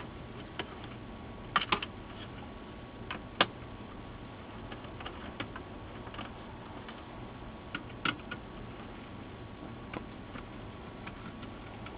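Phillips screwdriver backing out the screws that hold an LCD monitor's power supply board to its sheet-metal chassis: scattered small clicks and ticks, some single and some in quick clusters, over a faint steady hum.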